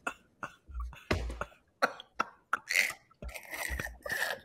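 A person's short, breathy vocal bursts without words, several in a row, cough-like.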